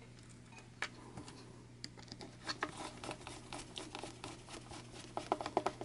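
Faint clicking and scratching of a screwdriver driving a small screw and washer into a plastic intake manifold, the ticks coming more often from about two seconds in, over a faint steady hum.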